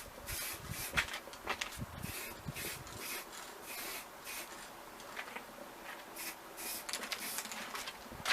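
Aerosol spray paint can being sprayed in short hissing bursts, several spread over a few seconds, with small handling clicks between them.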